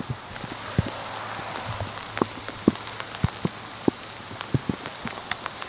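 Rain falling: a steady hiss with scattered close drops ticking at irregular intervals.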